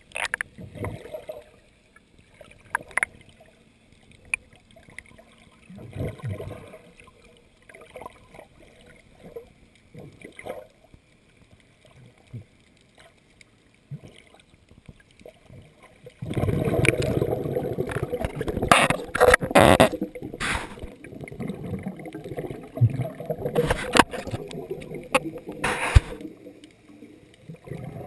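Water churning and bubbling, picked up by a GoPro camera in its waterproof housing underwater. It is quiet with scattered faint knocks for the first half, then from about halfway turns into a loud continuous rush of water with sharp knocks as a swimmer strokes and splashes at the surface close by.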